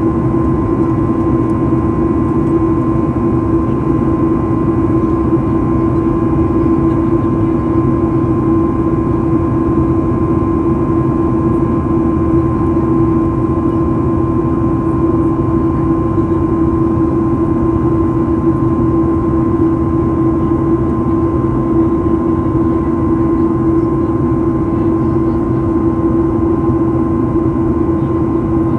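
Steady cabin noise of a Boeing 737-800 in flight, heard from inside the cabin: the CFM56-7B turbofan engines hum at a constant pitch, with a fainter higher tone, over a rushing of air.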